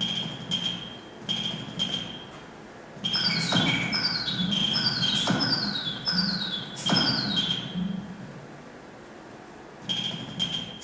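Electronic beeper sounding short high beeps in pairs, then a busier run of beeps with quick falling chirps and three sharp clicks in the middle, before the paired beeps return near the end.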